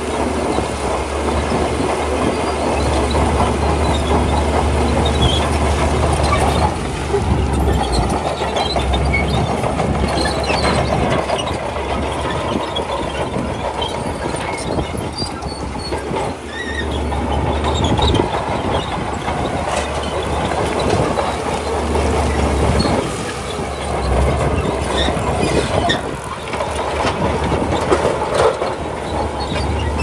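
Crawler bulldozer working stone: a steady diesel engine drone under the clatter and squeal of its steel tracks and the crunch of rock being pushed. The drone eases briefly a few times.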